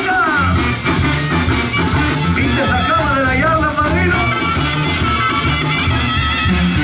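Music with a singing voice, guitar and a steady bass beat.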